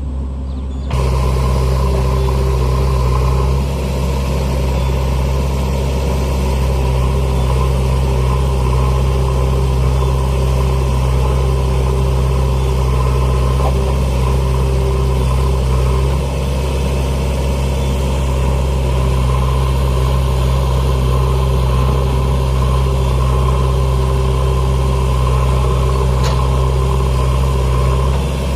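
Heavy diesel engine running steadily, a low even drone; the sound jumps abruptly about a second in, as at a cut.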